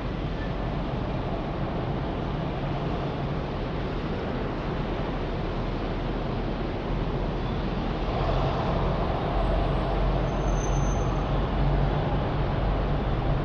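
City street traffic: a steady rumble of engines and tyres, growing louder about halfway through as a vehicle comes close.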